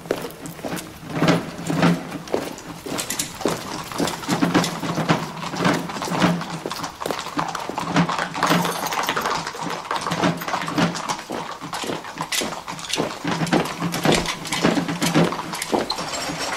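Troops on the march: many horses' hooves clattering on cobblestones, mixed with the tramp of marching feet, a dense run of knocks that keeps on throughout.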